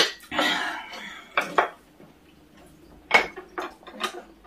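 Cutlery clinking and knocking against dishes during a meal, a string of separate sharp clinks, a few with a short ring, with a brief rustling stretch about half a second in.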